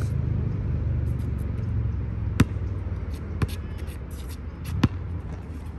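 A basketball bouncing on an asphalt court: three sharp bounces, about a second apart, over a steady low rumble.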